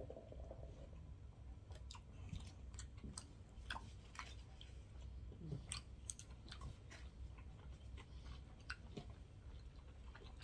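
Faint close-miked chewing of sushi, soft wet mouth sounds with scattered small clicks, over a low steady hum.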